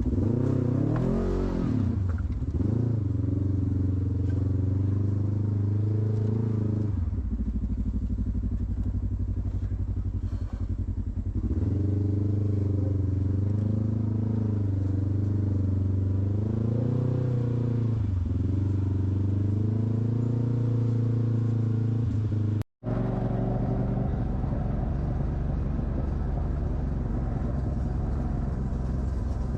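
Off-road vehicle's engine working under load on a rocky climb, revs rising and falling again and again. The sound cuts out for an instant about two-thirds of the way through, then the engine runs on more evenly.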